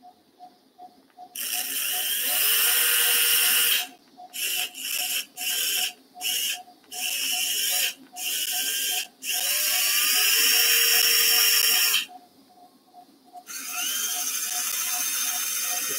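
Powered surgical pin driver driving an orthopaedic pin into the dog's distal femur in bursts: a long run, then a string of short quick pulses, then two more long runs. A faint regular beep about three times a second sounds underneath.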